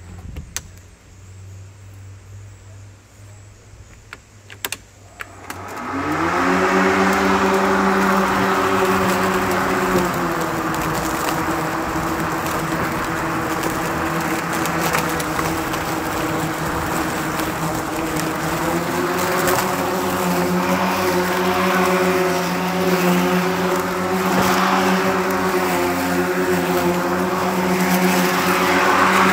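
Kobalt 40-volt 20-inch cordless electric lawn mower: after a few clicks, the motor and blade spin up with a rising whine about six seconds in, then run steadily. The pitch sags a little for several seconds midway and then rises again.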